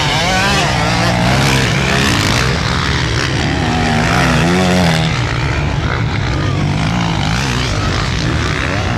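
Several motocross motorcycle engines revving hard, overlapping, their pitch rising and falling again and again as the riders throttle through the climb and the jump.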